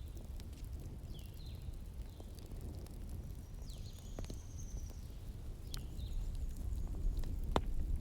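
Wood fire crackling: scattered sharp pops over a steady low rumble, with a louder pop near the end. Faint high, falling chirps recur throughout.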